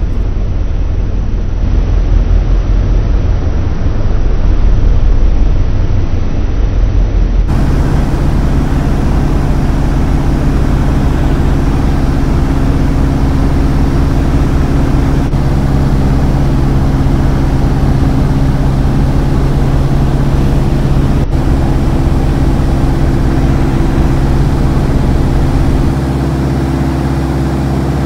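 Just Aircraft SuperSTOL light aircraft in flight, heard from on board: a steady engine and propeller drone under heavy wind rumble on the microphone. About seven seconds in the sound changes abruptly and the engine's hum comes through clearer as a set of steady tones.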